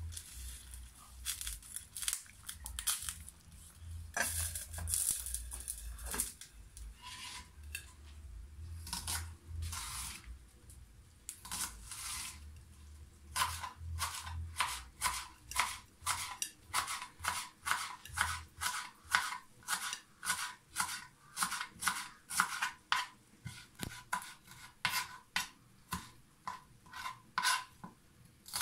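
A kitchen knife chopping spring onion on a plastic cutting board, with sharp, even chops at about two a second from roughly halfway through. Before that there are scattered clinks and rustles of food and cookware being handled.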